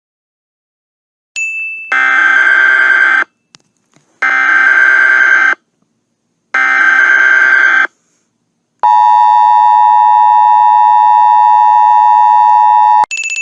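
Emergency Alert System tones: a chime, then three screeching bursts of SAME digital header data, then the steady two-tone EAS attention signal for about four seconds, cut off near the end by another chime.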